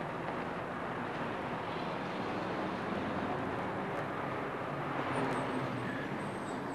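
Steady street traffic noise: a continuous rush of passing cars.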